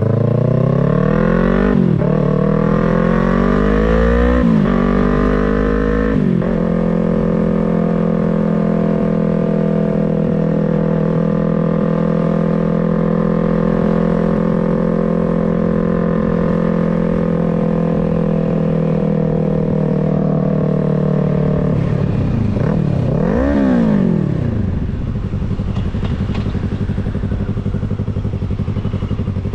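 2023 Yamaha MT-03's parallel-twin engine and exhaust pulling through the gears, the revs climbing and dropping at shifts about two, four and six seconds in, then holding a steady cruise. Near the end the revs rise and fall sharply once and the engine settles at a lower, steady note.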